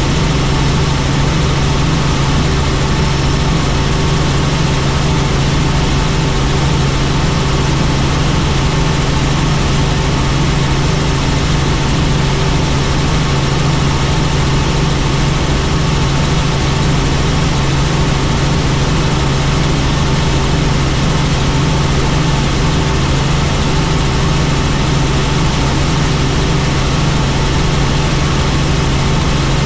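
Helicopter running steadily in flight: a constant loud low drone with steady higher tones over a dense hiss of engine and rotor noise.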